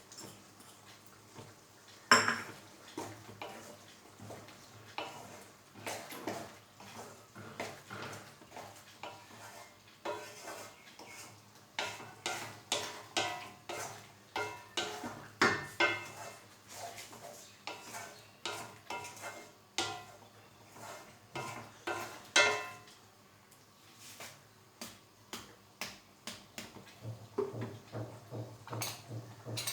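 A cooking spatula knocking and scraping against a pan in irregular clinks while the chana masala is stirred, with one sharp strike about two seconds in.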